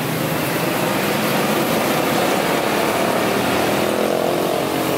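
Road traffic noise with a large bus driving past close by: its engine grows louder as it nears in the last couple of seconds, over the steady running of motorcycles and cars.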